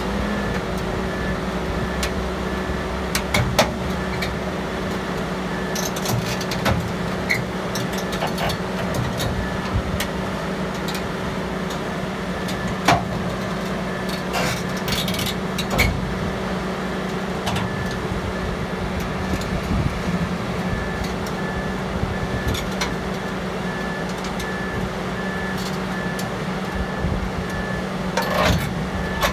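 Sandvik Ranger crawler drill rig's diesel engine running steadily as the rig crawls up a lowbed trailer's steel ramp, with scattered clanks from its steel tracks on the ramp. A faint high beep repeats about twice a second through most of it.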